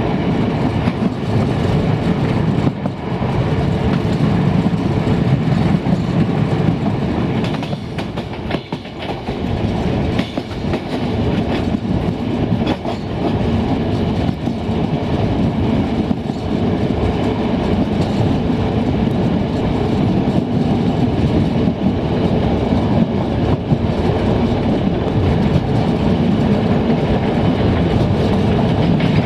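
Passenger train running along the line, heard from the ride: steady rolling noise of the wheels on the rails with the clickety-clack of rail joints, briefly quieter about eight seconds in.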